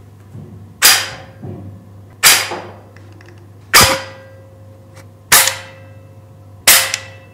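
Trigger unit of a Novritsch SSG10 airsoft sniper rifle snapping five times, about a second and a half apart. Each is a sharp metallic click with a short ringing tail: the small return spring pulling the sear back into place after the trigger releases, relatively loud. A steady low hum runs underneath.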